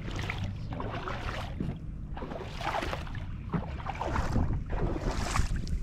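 Footsteps in boots splashing through shallow creek water, a wash of water with each stride about once a second, over steady wind rumble on the microphone.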